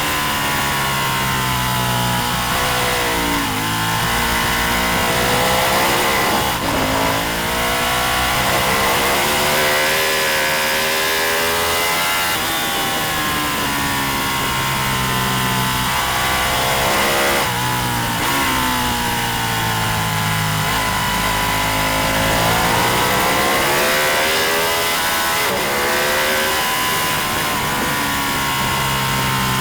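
Racing motorcycle engine at full race pace, its pitch climbing hard through the gears and dropping sharply at shifts and braking several times over, with steady wind rush.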